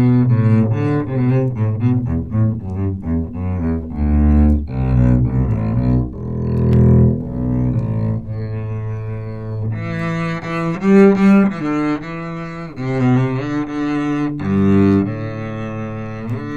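Music from a vinyl record played with a Denon DL-103R moving-coil cartridge, taken directly from the Vista Audio Phono 2 phono preamp's output with no further amplification: low string instruments playing, with fuller, brighter tone from about ten seconds in.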